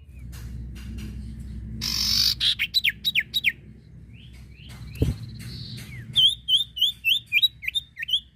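Iora (cipoh) singing a loud, varied song: a harsh rasping burst about two seconds in, a run of quick falling whistles, then a string of about eight rising, hooked whistles near the end. One low thump in the middle, over a steady low rumble.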